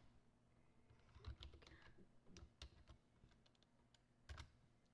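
Computer keyboard being typed on: faint, unevenly spaced keystrokes, with a louder pair of key presses near the end.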